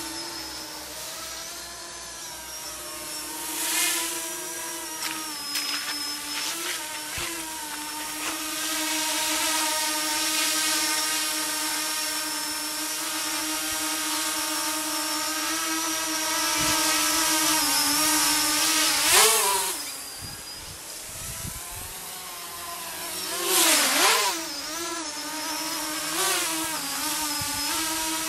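Mini tricopter's three electric motors and propellers whining in flight, a steady buzzing hum whose pitch wavers with throttle. Several times the whine surges louder and swoops sharply up and down in pitch, most strongly a little before the two-thirds mark and again shortly after.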